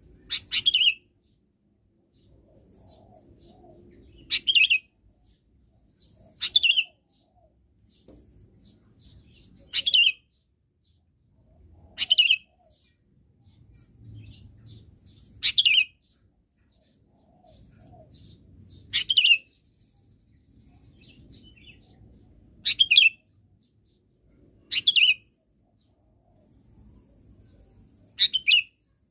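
Sooty-headed bulbul (kutilang) calling: about ten short, sharp, high calls, one every two to four seconds, with a faint low rumble in the gaps between them.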